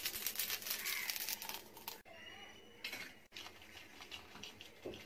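Cumin seeds dry-roasting in a small pan over a gas flame, crackling and rattling as the pan is tilted. About two seconds in the sound cuts and goes on quieter, as dried red chillies roast in the pan.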